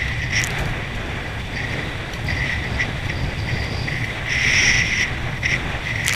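Wind buffeting and water rushing past an action camera skimming through a boat's wake: a steady low rumble under hissing spray, which swells briefly about four and a half seconds in.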